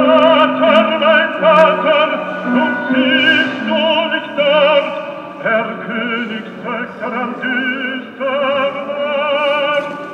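Operatic singing with strong vibrato over an accompaniment, in phrases of long held notes.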